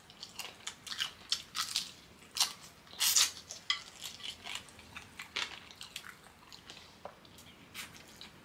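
Close-up eating sounds: a person biting and chewing crunchy deep-fried fish, with irregular crackly crunches, the loudest about three seconds in.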